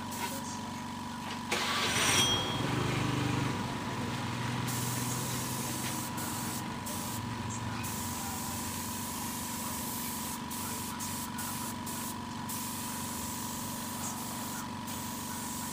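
Compressed-air spray gun hissing as it sprays clear coat onto a bike frame, the hiss stopping briefly and starting again many times as the trigger is released and pulled, over a steady hum and a thin whine. A louder rush comes about a second and a half in and lasts about two seconds.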